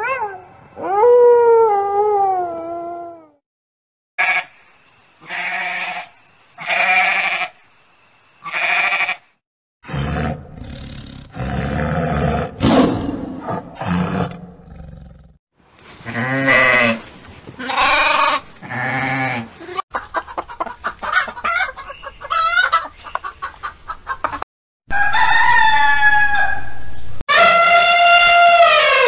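A string of separate animal calls: a wolf howling at the start, a tiger roaring around the middle, and an elephant trumpeting in one long call near the end. Shorter calls from other animals come in between, including four short evenly spaced calls and a fast rattling stretch.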